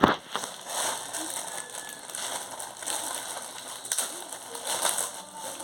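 Plastic chowmein noodle packet crinkling and rustling as it is handled and cut open, with a sharp click at the start and irregular flurries of crackling.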